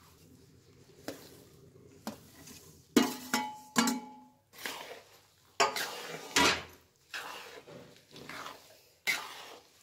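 A steel bowl knocking against the rim of a steel kadai several times, the loudest knocks about three to four seconds in ringing briefly, as powdered jaggery is tipped out. After that, a spatula scrapes and pushes in repeated strokes through the thick flour and jaggery mix in the kadai.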